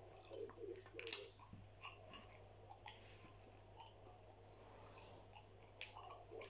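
Faint gum chewing: scattered wet mouth clicks and smacks at an irregular pace.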